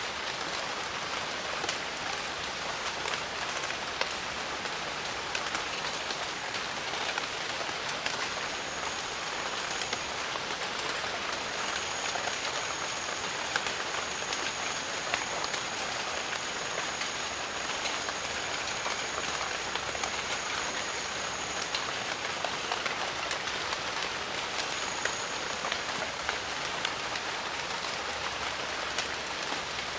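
Steady rain in a jungle: an even hiss with scattered sharp drop ticks. A thin, high, steady tone sounds over it for about ten seconds in the middle, and briefly again a little later.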